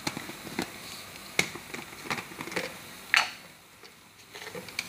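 Pot of tomato rice cooking liquid bubbling on the stove, with irregular small pops and clicks and two louder sharp clicks, about a second and a half and three seconds in.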